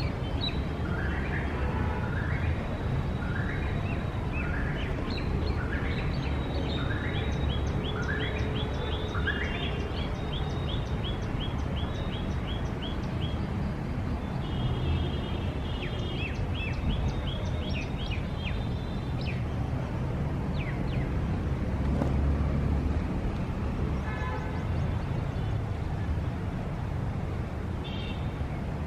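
Birds calling over a steady low rumble of city traffic. For the first ten seconds one bird repeats a rising whistled note about every 0.7 s. After that come fast runs of short, high, falling notes.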